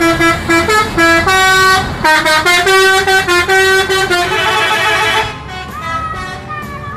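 Indonesian bus's musical multi-tone 'telolet' horn playing a loud stepped melody of short and held notes for about five seconds. Then it stops and a fainter single note bends up and down.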